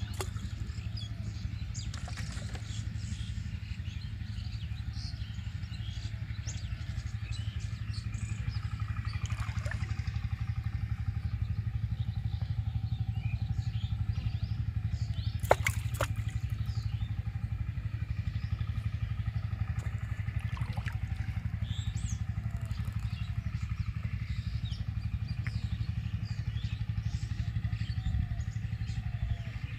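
A steady low engine-like drone, with faint short chirps scattered over it and one sharp click about halfway through.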